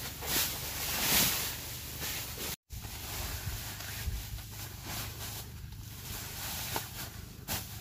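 Foil-faced foam insulation mat crinkling as it is unfolded and spread across a tent floor, loudest in short swells at the start. A brief cut to silence comes about a third of the way in, and after it the crinkling is quieter with a few sharp ticks.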